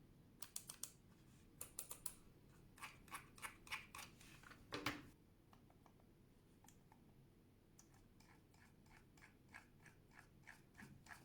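Logitech M330 Silent Plus wireless mouse being clicked: quiet clicks in quick groups of three or four, the loudest a little under five seconds in, then a run of fainter, evenly spaced clicks near the end.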